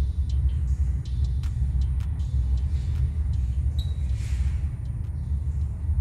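A steady low rumble, with faint sharp clicks scattered through it and a brief hiss about four seconds in.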